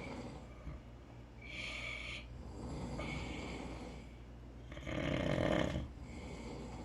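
A sleeping person snoring in a strange rhythm: hissing breaths come every second or two between rough snores, and the loudest snore comes about five seconds in.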